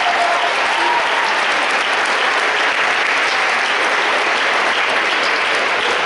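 Audience applauding steadily, with the last held notes of the dance music dying away in the first half-second.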